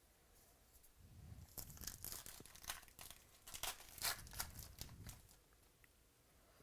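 A trading-card pack wrapper being torn open and crinkled, a few seconds of sharp crackling.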